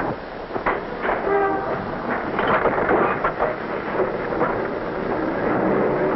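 Third Avenue elevated train clattering steadily, with sharp knocks and a brief horn-like tone about a second in.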